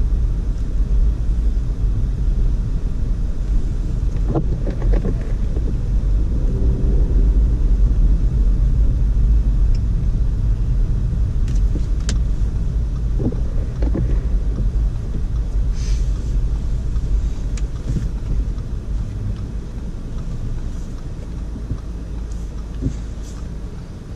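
2012 Audi A4 Quattro driving on a snow-covered road: a steady low rumble of engine and tyres, with a few faint scattered clicks and knocks, easing off gradually over the last few seconds.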